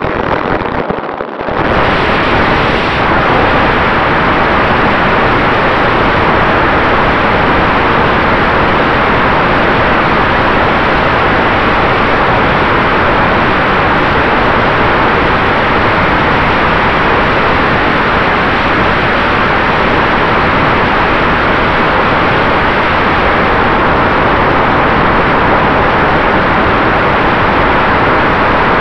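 Model airplane's motor and propeller heard from a camera mounted on the aircraft, buried in loud, steady wind and prop-wash noise with a faint steady whine. It rises to full power about two seconds in as the plane takes off and then holds steady in flight.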